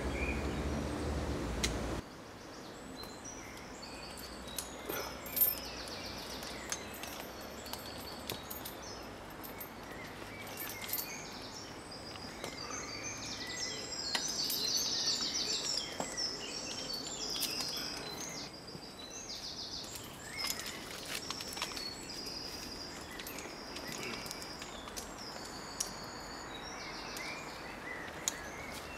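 Small birds chirping and trilling in woodland over a low background hiss, with scattered faint clicks and knocks. The background drops abruptly about two seconds in.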